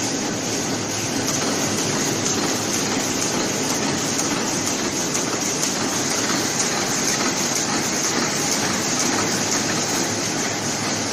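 Horizontal flow-wrap (pillow-bag) packing machine and its conveyors running: a steady, even mechanical noise with no break.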